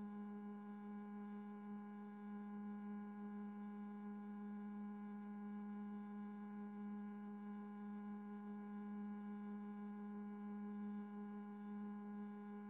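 Faint steady electronic hum: a constant low tone with several higher tones above it, unchanging throughout.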